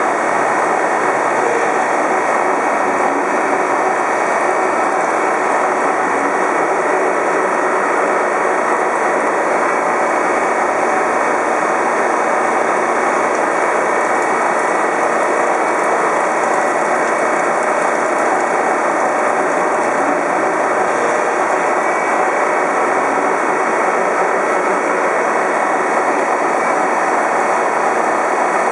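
Gleason hypoid gear generator cutting a steel spiral bevel pinion at high speed: the spinning cutter head and machine drive make a loud, steady noise, while cutting oil floods over the cut.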